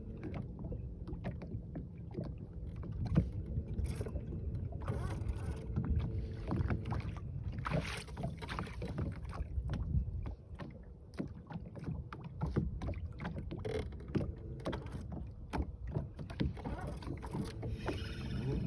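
Handling noise on a small fishing boat: scattered knocks and clicks against the hull and gear over a steady low rumble.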